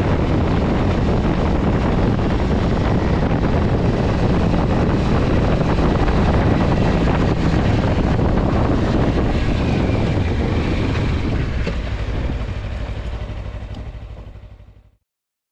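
2023 Kawasaki Versys-X 300's parallel-twin engine running at road speed, with wind and road noise, fading out over the last few seconds.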